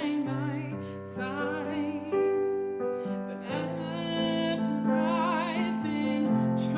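A female vocalist singing held notes with vibrato over piano accompaniment.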